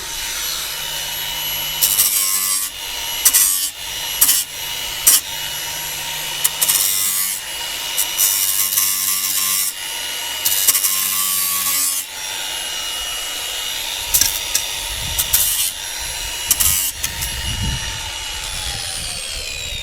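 A power tool grinding the rough edges off a lawn mower's front plate: a steady motor whine, broken by repeated harsh scraping bursts each time the tool bites into the edge. Near the end it is switched off and its pitch falls as it spins down, with a few low knocks while the part is handled.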